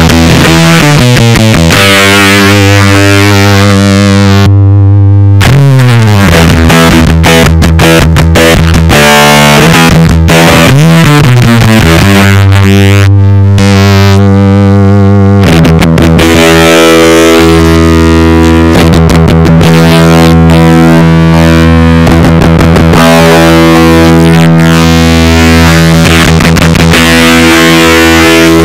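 Electric guitar played through the Expandora Forbidden Fuzz prototype pedal, its Tone switch active and Fat switch off: thick, heavily fuzzed sustained notes with a couple of sliding pitch glides. The fuzz tone changes partway through as the pedal's knobs are adjusted.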